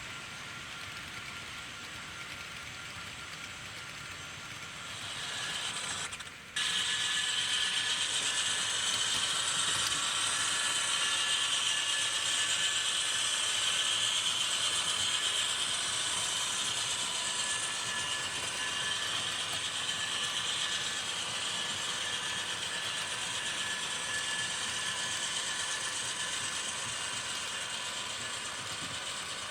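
HO-scale model train running along the track: a steady whir and clatter from the locomotive's drive gears and wheels on the rails. About six seconds in it cuts suddenly to a louder stretch.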